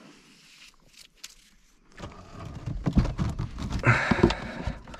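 Gear being handled against a canoe's hull. It is faint for the first two seconds, then turns into irregular knocks, thumps and rubbing as hands work at the bow.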